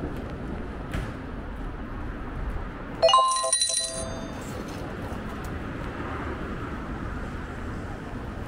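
A sudden bright metallic ring about three seconds in, several clear tones at once, fading over about a second, over a steady street background.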